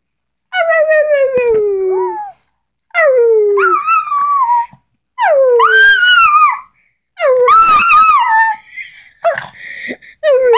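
A small dog howling in a series of long drawn-out calls, about four of them, each sliding down in pitch and some wavering up again at the end, with a short breathy snuffle near the end.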